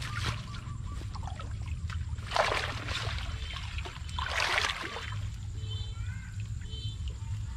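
Shallow muddy floodwater splashing and sloshing as a woven basket is pushed and scooped through it among water plants, with two louder splashes about two and a half and four and a half seconds in.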